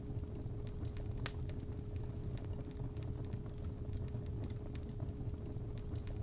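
Steady 417 Hz tone over a fireplace fire recording: a low rumble with scattered pops and crackles, one sharper pop about a second in.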